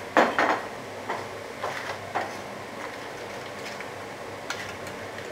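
Wooden spoon stirring cherry tomatoes and mussels in a metal frying pan: two sharp knocks right at the start, then a few lighter clatters of spoon and shells against the pan.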